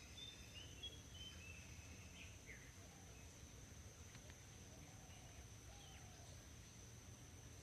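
Faint outdoor ambience: a steady high-pitched insect drone, a few faint bird chirps, and a low rumble underneath.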